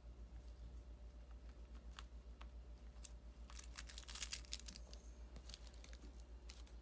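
Faint crinkling and clicking for about a second near the middle, over a low, steady, pulsing hum.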